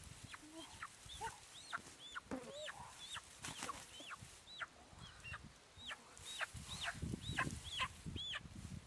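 A chicken giving a run of short, shrill peeping cries, about two a second, each rising and falling quickly. Dry grass rustles underneath, most in the last couple of seconds.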